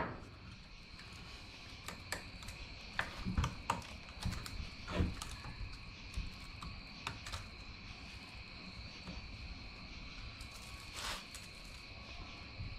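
Saw chain links clicking and rattling against the bar as a new chain is worked around a Husqvarna chainsaw's bar by hand, in scattered small clicks, with a faint steady high-pitched tone underneath.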